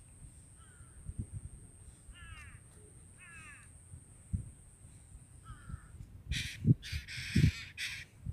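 A bird gives four short calls, spaced one to two seconds apart, then water splashes and sloshes with thumps in the last two seconds, the loudest part.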